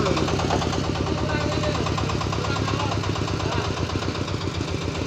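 Motorcycle engine idling steadily, with a fast, even run of firing pulses.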